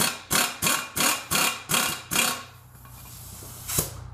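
Pneumatic impact wrench hammering in short trigger bursts, about three a second, backing bolts out of a brake rotor hub. The bursts stop about two seconds in, a steady low hum comes in, and there is one sharp click near the end.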